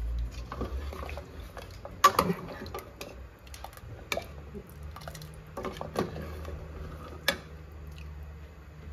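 Pot of nihari gravy, thickened with flour, simmering with soft wet bubbling and plopping, broken by a few sharp clicks, the loudest about two seconds in.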